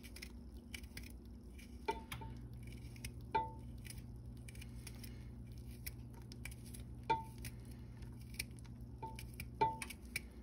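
Sliced garlic dropping into a stainless stock pot of sautéing onions and carrots: a soft patter of slices landing, with several ringing metal clinks as a utensil knocks against the pot.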